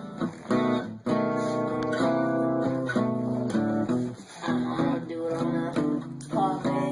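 Music: a plucked-string instrumental, a run of distinct notes with short pauses.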